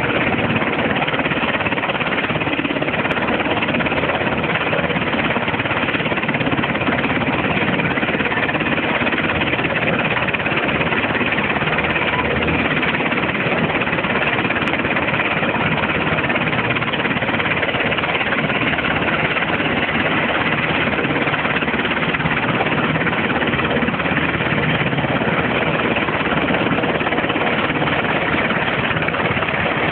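A loud, steady engine drone that holds the same level and pitch throughout, with faint steady whining tones over it.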